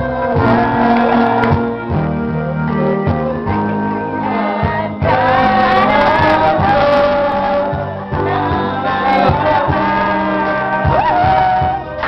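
Karaoke: a voice singing into a microphone over a loud backing track, both amplified through the room's sound system.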